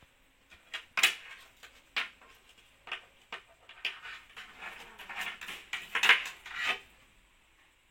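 Power-supply cables and their plastic connectors being handled and tucked away inside a PC case: a string of irregular sharp plastic clicks and short rattles that stops about seven seconds in.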